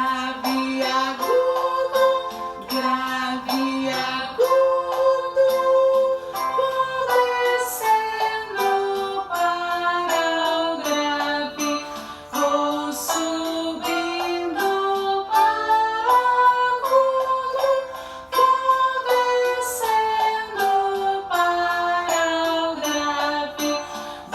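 Music: a woman singing a stepping melody over an instrumental accompaniment with a steady beat.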